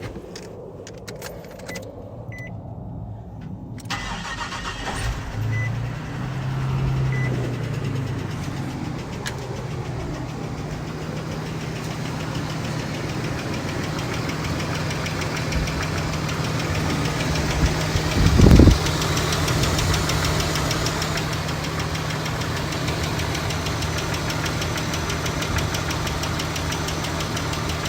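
2002 Nissan Xterra engine starting about four seconds in, revving briefly, then idling with a loud, rapid, even ticking. A short loud thump about two-thirds of the way through.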